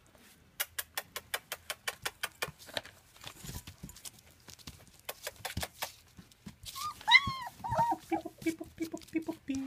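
German Shepherd puppies moving about, with a run of quick clicks and taps in the first three seconds. About seven seconds in a puppy gives a whining cry that rises and falls, followed by a string of short whimpers near the end.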